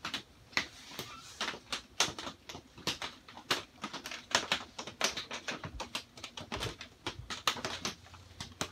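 Rain drumming on a greenhouse's plastic roof panels, heard from inside: an irregular scatter of sharp ticks, several a second.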